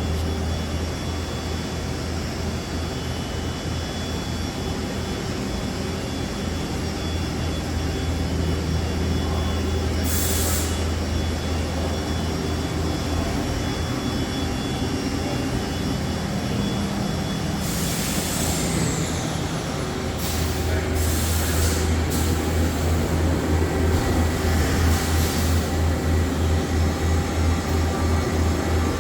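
Okuma LB3000EX-MW CNC lathe running under power: a steady low machine hum with whining tones, broken by several short hisses.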